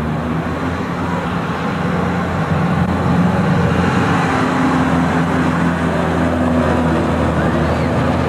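Steady mechanical rumble and hum of a running amusement ride, growing louder about two and a half seconds in.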